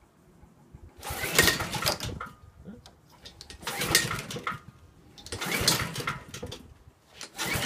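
Honda HRT216 lawn mower's pull-cord recoil starter yanked four times, the engine cranking over briefly with each pull but not catching, the last pull near the end. The owner thinks a valve may be stuck.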